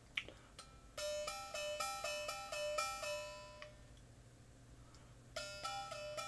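Chinese khou xhaing (ho-ho) brass jaw harps flicked in a quick run of twangs from about a second in. The note shaped by the player's mouth and throat steps back and forth between two pitches. A pause follows, then another run of twangs near the end.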